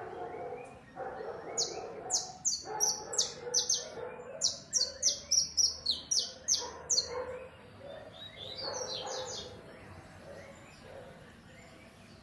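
A double-collared seedeater (coleiro) singing a fast, loud series of sharp, high whistled notes, about two or three a second, ending about seven seconds in; a few softer notes follow near nine seconds. A lower droning sound with breaks runs underneath for most of it.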